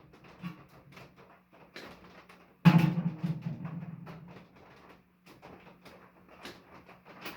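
Clicks and clatter of salvaged microwave parts being handled. About two and a half seconds in comes one loud clunk, like a part dropped into a bucket or pile, with a low ring dying away over a couple of seconds.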